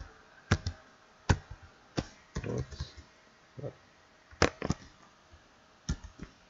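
Slow, uneven keystrokes on a computer keyboard, single keys pressed one at a time with pauses of up to a second between them, some in quick pairs.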